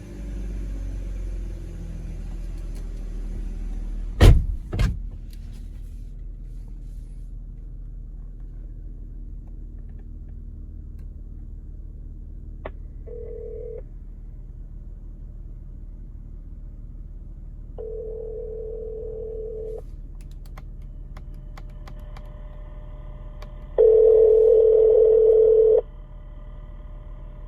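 Telephone ringback tone ringing in two-second bursts several seconds apart, the last the loudest, over the steady idle hum of a BMW 325ci's inline-six. There are two sharp knocks about four seconds in.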